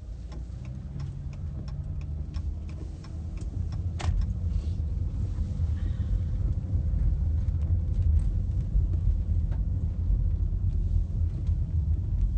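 Car cabin noise while driving on a wet road: a low rumble that grows louder about four seconds in. A steady ticking, two to three ticks a second, runs through the first few seconds and stops with a sharp click.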